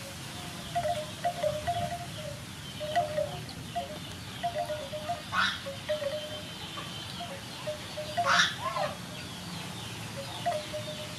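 Light chime-like tones, short notes at two close pitches repeating irregularly, with two brief sharper sounds about five and eight seconds in.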